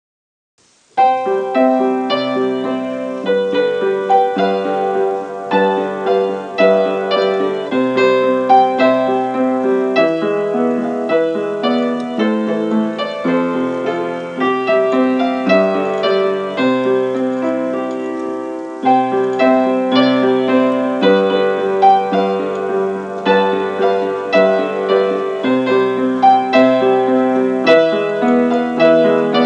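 Upright piano played with both hands, starting about a second in: a steady tune over a repeating bass line.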